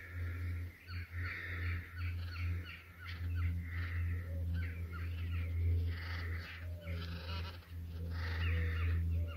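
Crows cawing repeatedly in short harsh calls, over a steady low hum.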